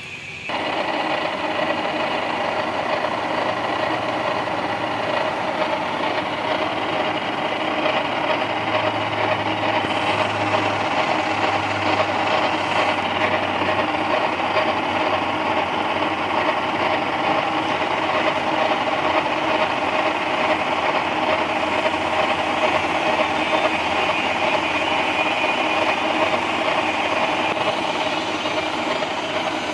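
Milling machine starting up and running steadily while its gear cutter cuts a tooth space in a gear blank, set to a 3 mm depth of cut.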